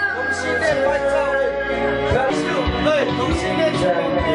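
Music with a voice singing a gliding melody over steady accompaniment.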